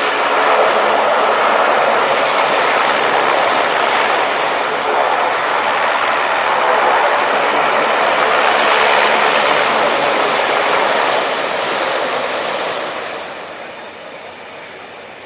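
An AP1-88 passenger hovercraft running close by: a steady, loud rush of its lift fans and ducted propellers, with air blowing out under the skirt. The noise fades away over the last few seconds.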